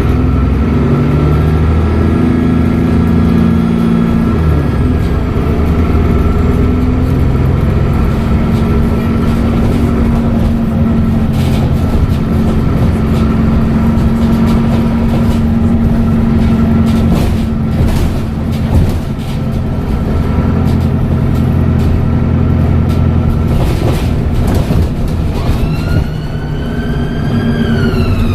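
Dennis Trident double-decker bus's diesel engine and Voith automatic gearbox under way, with a steady turbo whistle above the engine note. Near the end a high whistling tone rises sharply in pitch.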